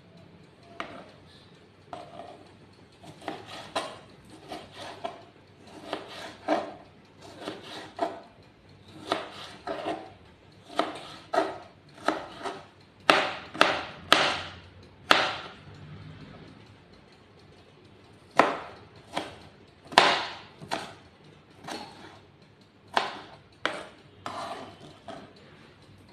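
Kitchen knife chopping vegetables on a plastic cutting board: sharp, irregular knocks in quick runs, loudest in a few hard chops around the middle.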